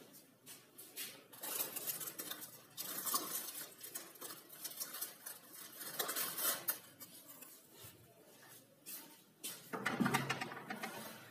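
Irregular clinking and light knocks of dishware being handled.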